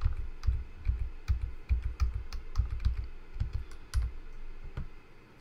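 Typing on a computer keyboard: an irregular run of key clicks, several a second, that thins out near the end.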